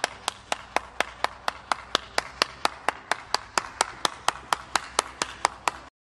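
One person clapping hands steadily, about four even claps a second, stopping abruptly near the end.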